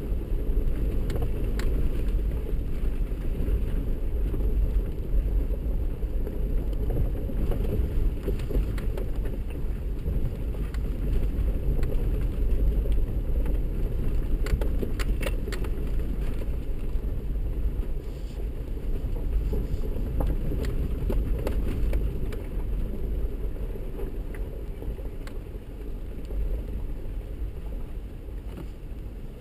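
A 4x4 crawling slowly over a rough, rocky dirt trail, heard from the vehicle: a steady low rumble of engine and tyres, with scattered clicks and rattles, a cluster of them about halfway through.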